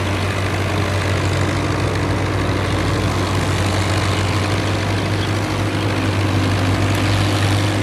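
Fiat 850 tractor's diesel engine running steadily under load as it pulls a trailer through water, with water churning around the wheels.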